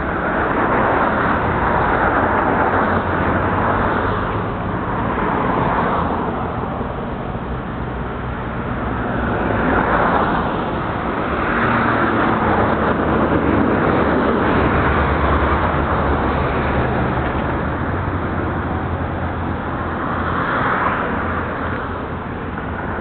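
Road traffic on a busy city street: cars passing one after another, their noise swelling and fading every few seconds over a steady low rumble.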